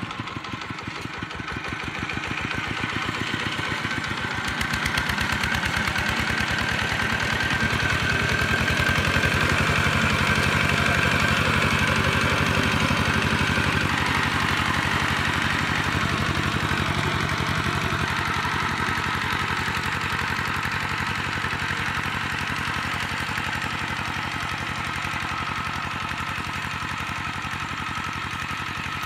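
Two-wheel walking tractor's single-cylinder diesel engine running steadily under load while it pulls a disc plough through the soil, with a fast, even firing beat. It grows louder as the tractor passes close, loudest around a third of the way in, then slowly fades as it moves away.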